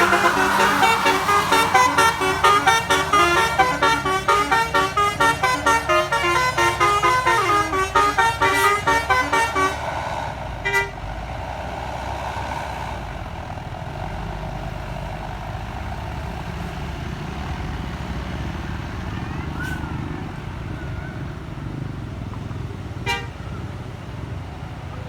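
A bus's telolet 'basuri' musical horn playing a fast tune of many short changing notes, which stops about ten seconds in. After that only the low rumble of a passing vehicle's engine and road noise remains, with a couple of short clicks.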